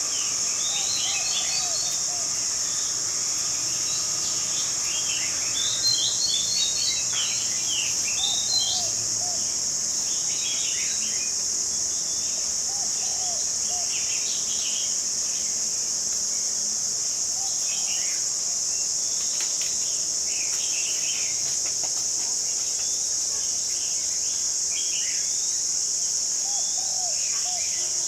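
A steady, high-pitched insect drone with birds chirping and calling over it, a few short chirps at a time, loudest about six and eight seconds in.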